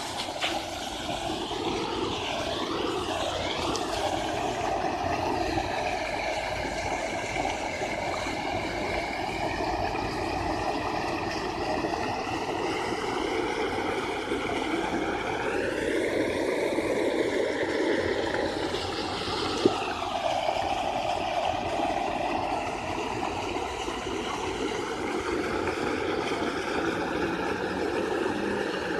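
Steady vehicle running noise, with a hiss whose tone drifts slowly, and one sharp click about twenty seconds in.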